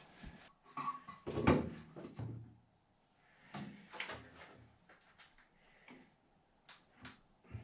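A string of short knocks and scrapes from hand work with tools, the loudest about one and a half seconds in, then several lighter knocks.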